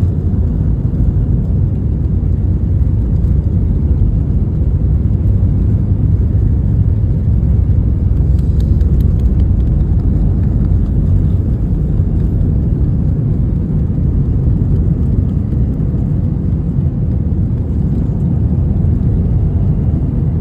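Steady low roar of an Airbus A321's twin jet engines at takeoff power.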